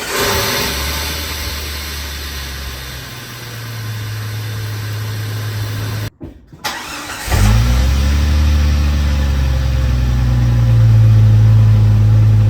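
Jeep TJ engine running with a newly fitted cold air intake, heard in two separate takes with a brief break about six seconds in; it holds a steady, even note in each.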